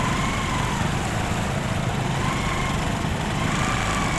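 Motor scooter engine running steadily at low speed while wading through floodwater, a low rumble under a faint whine that rises and falls gently in pitch a few times with the throttle.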